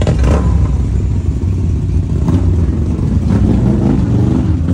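Loud, steady low engine rumble.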